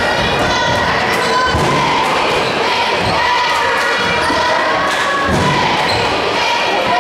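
A basketball bouncing on a hardwood gym floor, giving low thuds every second or so as players dribble, in a large, echoing gymnasium.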